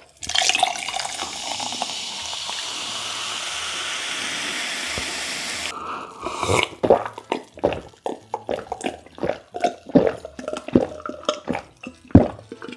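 Carbonated lemon-lime soda (Chilsung Cider) poured from a can into a glass mug over ice, a steady fizzing pour that stops about six seconds in. Then a series of gulps follow as it is drunk, about two a second.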